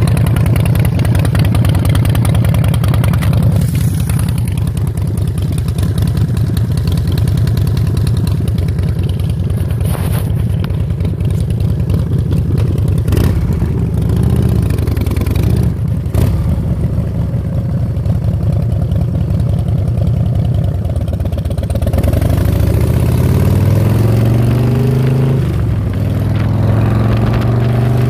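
Chopper motorcycle engine idling steadily. Near the end it is revved up and down a few times, then settles back to idle.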